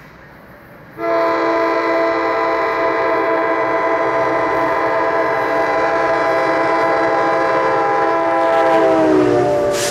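NJ Transit PL42AC locomotive's air horn blowing one long steady blast that starts about a second in and is held for about eight seconds. Near the end the chord drops in pitch as the locomotive passes close by, followed by a brief rush of the passing train.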